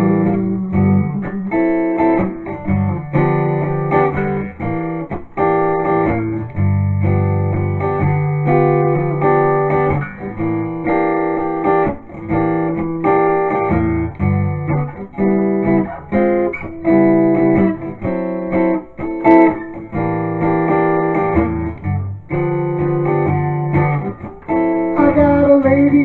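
Jasmine acoustic guitar strummed in a steady blues rhythm, an instrumental break with chords changing every second or so.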